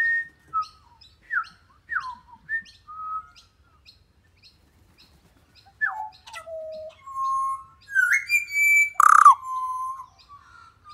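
Pied butcherbird singing close by: a series of clear, fluting whistled notes, many gliding downward. After a short pause the notes grow longer and louder, with one harsher, louder note near the end.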